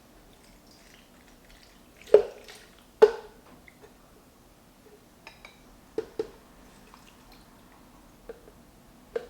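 A few sharp knocks and clinks of kitchen containers being handled while smoothie ingredients go into a blender jar, the loudest two about a second apart near the start, with quieter ones later.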